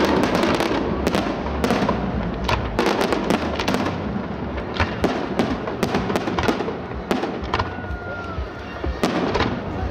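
Aerial fireworks display: a rapid, continuous volley of shell bursts, bangs and crackles, with a brief whistle about three-quarters of the way through.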